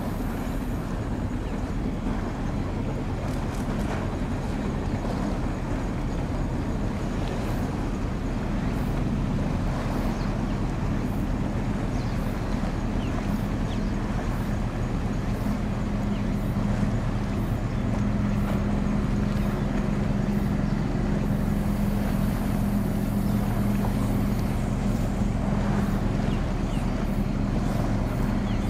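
A ship's diesel engines droning steadily over a constant hiss of wind and water, the low hum swelling a little louder in the second half.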